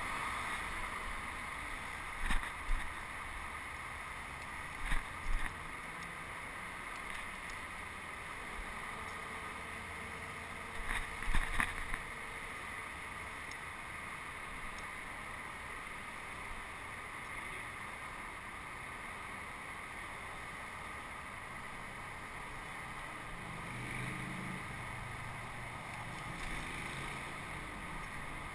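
Steady rolling noise and wind on the microphone from a small vehicle moving along paving, with a few short knocks: a pair about two seconds in, a pair around five seconds and a louder cluster around eleven seconds.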